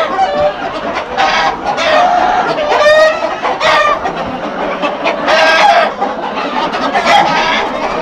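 A large flock of village chickens, hens and roosters, clucking and calling over one another in a constant loud din of overlapping calls.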